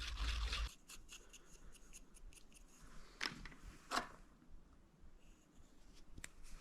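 Small workshop handling noises: a rubbing scrape that stops under a second in, then light clicks and two short knocks about three and four seconds in.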